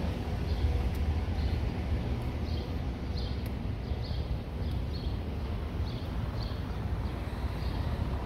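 Outdoor street ambience: a steady low background rumble, with a small bird chirping over and over, about one short high chirp a second.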